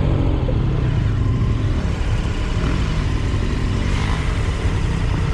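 KTM 1290 Super Adventure R's V-twin engine running on the move, its pitch shifting up and down with the throttle, over a steady rush of noise.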